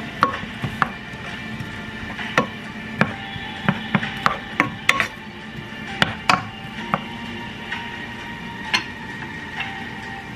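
Wooden spoon stirring shallots and garlic in oil in a stone-coated nonstick pan, knocking and scraping against the pan's side and bottom in irregular taps throughout.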